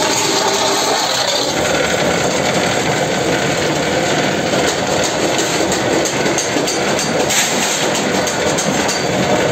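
A belt-driven lathe running steadily, spinning an iron mortar pan on its spindle while a rag is held against the pan to polish it. A few light clicks come through in the second half.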